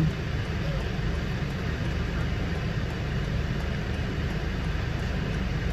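Steady cabin noise of a car waiting at a red light, its engine idling: a low hum with a lighter hiss over it, unchanging throughout.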